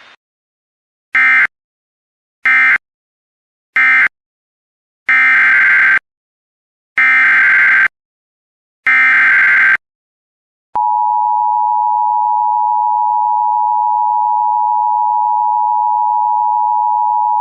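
Emergency Alert System digital data bursts: three short screeching bursts, then three longer ones, the SAME code marking the end of one alert and the header of the next. About 11 s in, a steady EAS attention tone starts and holds.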